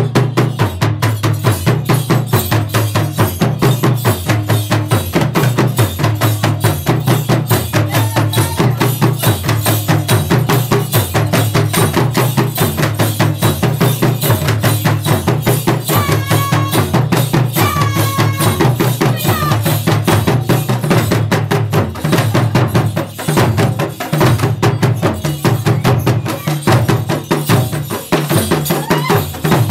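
West African drum ensemble of hand-played djembes and stick-played bass drums playing a fast, driving rhythm, the deep bass drums repeating a steady pattern under rapid djembe strokes.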